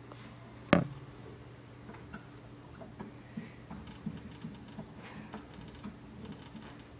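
Black bear hamster moving about at the foot of its plastic wheel: small irregular ticks and scratches of claws on plastic and bedding, with one sharp knock about a second in, over a faint steady hum.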